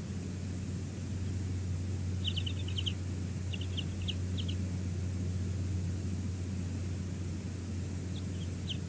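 Bald eagle giving short, high, quick chittering calls in clusters, about two seconds in, again around four seconds, and once more near the end, over a steady low rumble.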